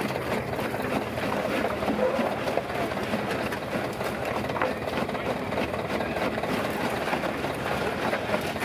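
Belt-driven jaw stone crusher running, its jaws crunching and grinding stones into gravel with a steady mechanical clatter, over the low hum of the engine driving the belt.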